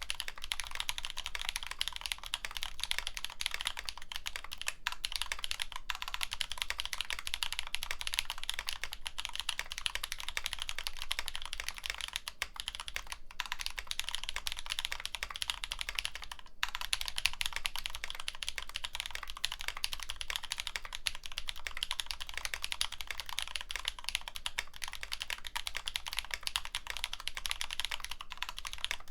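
Fast, continuous typing on a NullBits Nibble65 mechanical keyboard with tactile Drop Holy Panda switches, an FR4 plate and GMK keycaps: a dense stream of key clacks with a few brief pauses.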